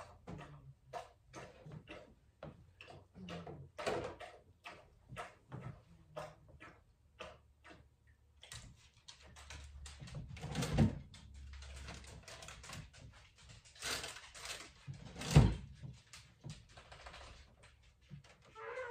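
Food and containers being moved around in an open refrigerator: quick clicks and taps, then rustling of packaging with two loud thuds, one about halfway through and one later.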